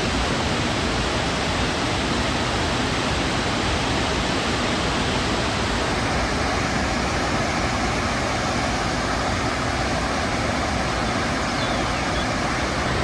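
A large waterfall with heavy flow crashing down: a steady, unbroken rush of falling water.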